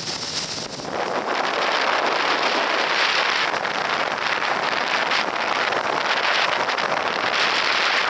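Steady wind rushing and buffeting over the microphone.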